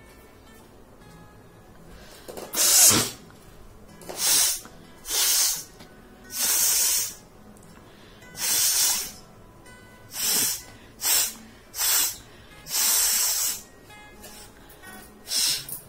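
A person forcing air hard through the nose in a run of about ten hissing blasts, each under a second, the first the loudest, as if blowing the nose out without a tissue. Faint background music runs underneath.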